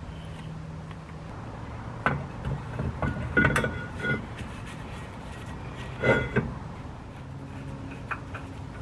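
Metal brake parts and tools being handled and knocked together: a few clinks and knocks, the loudest about three and a half and six seconds in, each with a brief metallic ring.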